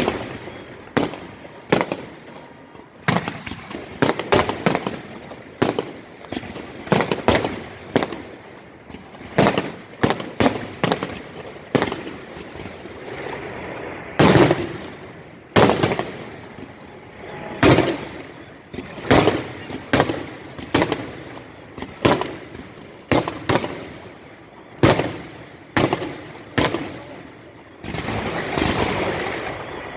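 Fireworks display: a rapid, irregular series of sharp booms from shells bursting overhead, each followed by a brief echo, with a stretch of dense crackling near the end.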